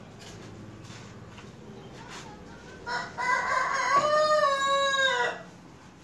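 A rooster crowing once, about three seconds in: a short note, then a long held call that drops off at the end.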